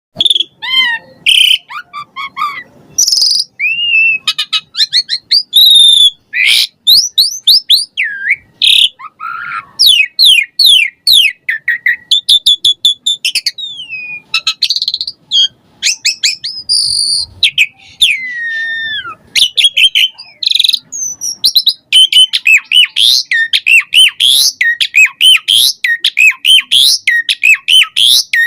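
Asian pied starling (jalak suren) singing a long, varied song of whistles, chirps and rising and falling glides, the starling's rich mimicking repertoire. In the last several seconds the notes turn into a dense, fast run.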